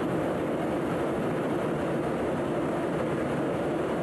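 Steady in-flight noise heard from inside a tanker aircraft: an even, unchanging rush of airflow and jet engine drone.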